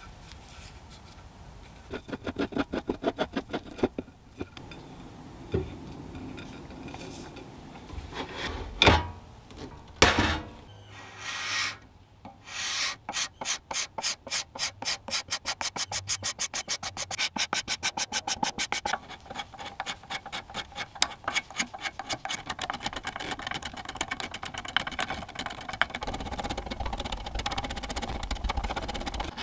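Hand scraping and sanding the old finish off a turned wooden table leg: fast, even back-and-forth rasping strokes. Two sharp knocks come about nine and ten seconds in, and there is a short lull before the strokes resume.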